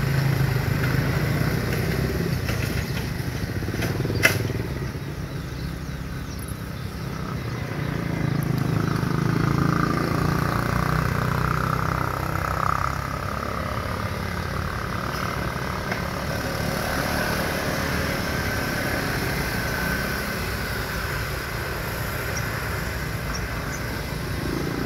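Road traffic: a steady rumble of vehicle engines, with a sharp click about four seconds in.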